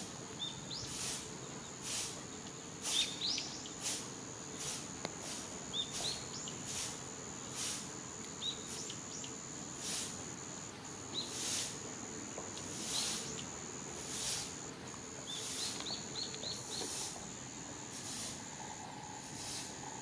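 Outdoor ambience with a steady high-pitched insect trill and, several times, short rising bird chirps, the longest run near the end. A soft hissing pulse comes roughly once a second throughout.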